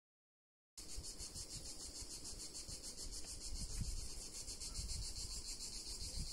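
A steady, high-pitched insect chorus with a fast, even pulse, starting just under a second in after a brief silence, with a low rumble underneath.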